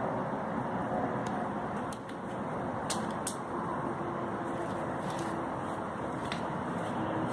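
Steady rumbling background noise with a few faint clicks scattered through it.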